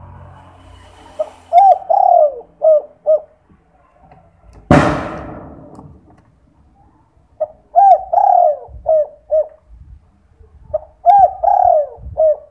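Spotted dove (derkuku) cooing three times in its 'kuk 2' song. Each phrase is a short opening note, a longer rising-then-falling coo and two short 'kuk' notes at the end. A sudden loud rush of noise fades away about halfway through.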